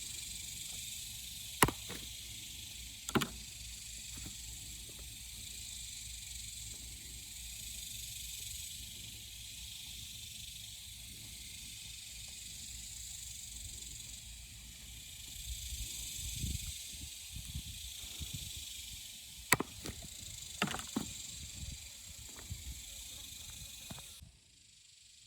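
A steady, high-pitched insect drone fills the background and cuts off about a second before the end. Over it come a few sharp clicks and soft handling bumps while a rooster carcass is skinned by hand.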